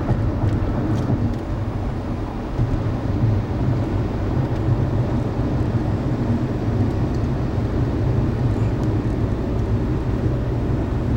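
Steady in-cabin road and engine rumble of a car cruising at highway speed, with an even hiss of tyres and wind.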